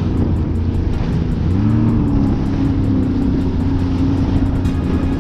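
Jet ski engine running under way, with a rush of wind and water. The engine pitch rises briefly about one and a half seconds in, then holds steady.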